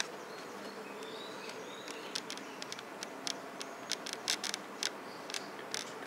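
A steady buzzing hum, with a run of sharp clicks in the second half.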